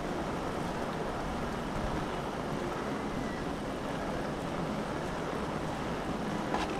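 Heavy rain falling steadily in strong wind, an even rushing hiss, with a brief click near the end.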